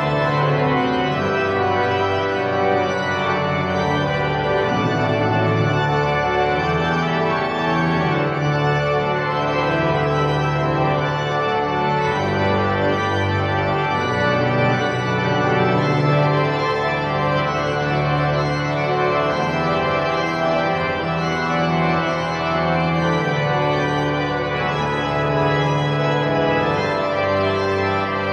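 Pipe organ playing held chords over a bass line, the low notes changing every second or two.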